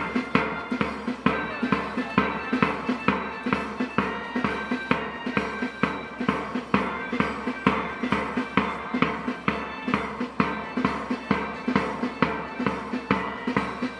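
School marching band playing a march: drums keep a steady beat, about two strokes a second, under a melody on wind instruments.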